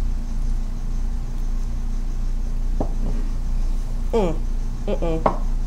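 Steady low electrical hum, with a few short wordless vocal reactions from people who have just downed a shot of tequila, near the middle and end.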